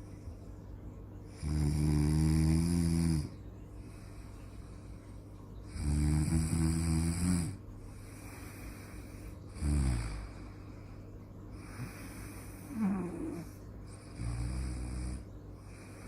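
A sleeping person snoring: five snores spaced about every three to four seconds. The first two are long rattling snores; the later ones are shorter, and one glides in pitch.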